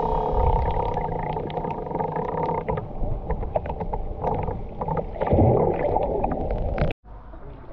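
Muffled underwater water noise heard through a camera held under the surface: a low, dense rumble with many scattered clicks and crackles. It cuts off sharply near the end and is followed by a quieter hiss.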